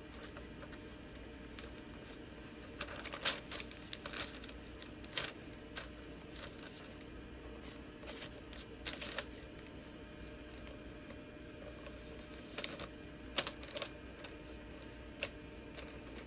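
Scattered light clicks and taps of small objects being picked up and set down on a worktable, in a few short clusters, over a low steady hum.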